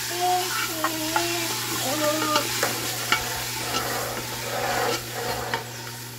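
Meat, seasoning and bell pepper frying in a pressure-cooker pot, sizzling steadily while a spoon stirs them, with sharp clicks of the spoon against the pot. A few short pitched notes sound over the first couple of seconds.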